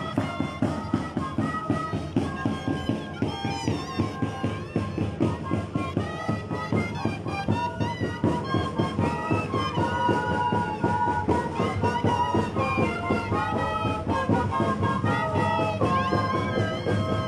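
Moceñada music: a band of several Andean flutes playing a melody over a steady drum beat.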